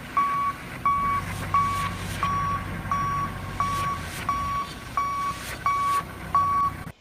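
Forklift's reversing alarm beeping steadily at one pitch, about ten beeps roughly 0.7 seconds apart, over a low steady hum from the machine; the sound cuts off suddenly near the end.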